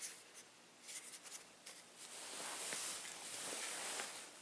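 Handling noise of a power bank being moved by hand: a few faint light clicks, then about two seconds of scratchy rubbing and rustling.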